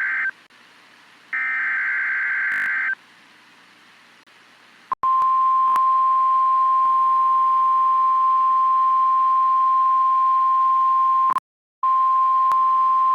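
NOAA Weather Radio emergency alert signal: the end of one buzzing SAME data burst and then a second full burst of about a second and a half, followed about two seconds later by the steady 1050 Hz warning alarm tone, which cuts out for a moment about eleven seconds in and then resumes. The tone marks an upcoming severe thunderstorm warning.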